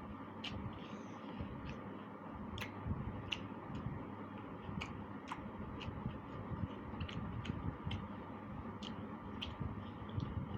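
Close-up eating sounds: chewing of curry and rice with sharp, irregular mouth clicks and smacks, roughly one or two a second.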